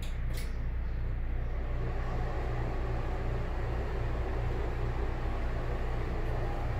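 Broan ceiling exhaust fan running with a steady hum and airflow noise. A brief click sounds about half a second in.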